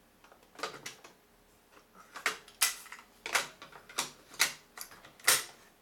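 Akai GXC-39D cassette deck operated by hand: a series of about a dozen sharp mechanical clicks and clunks from its piano-key transport buttons and cassette compartment as a tape is handled and loaded.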